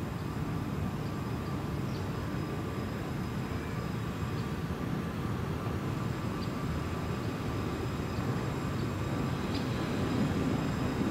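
Tram approaching slowly on new track, a steady low rumble that grows a little louder near the end.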